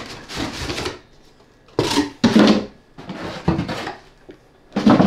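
Cardboard box and moulded pulp packaging insert scraping and rubbing as the insert is pulled out, in about five short bursts with pauses between.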